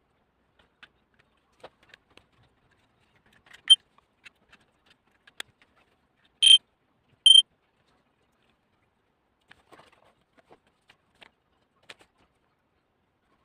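Carbon monoxide alarm's piezo beeper giving one short chirp, then two brief high beeps less than a second apart, amid light handling clicks.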